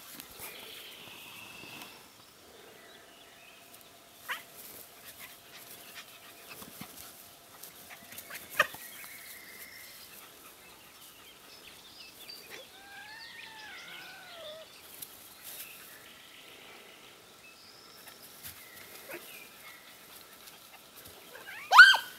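A puppy and a kitten at rough play, mostly quiet, with a few short sharp sounds and some faint whining cries midway. Near the end comes one loud, short, high-pitched yelp, the loudest sound here.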